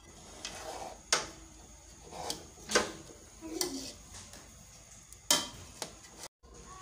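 A metal slotted spatula clinking and scraping against a metal cooking pot while cooked biryani rice is mixed, with three loud clinks about a second, almost three seconds and a little over five seconds in.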